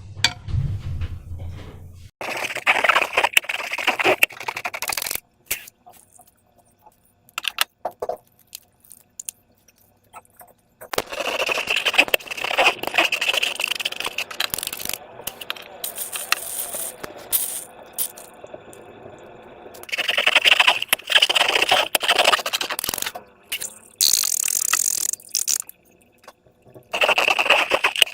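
Slime and rubber balloons being handled, making crackly, scraping, squishing sounds in bursts of a few seconds with short pauses between them.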